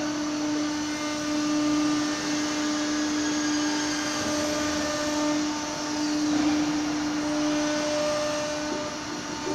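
Woodworking CNC machining centre running: a steady pitched hum over a constant rushing machine noise, with a brief falling whine about six seconds in.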